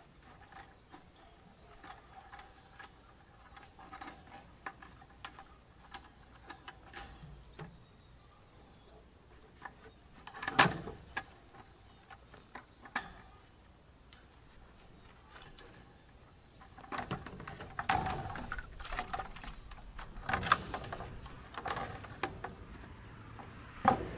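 Scattered light clicks and knocks, with a few sharper knocks about ten seconds in and a busier stretch of knocking and rustling near the end: a bottle calf nosing and butting at its water bucket.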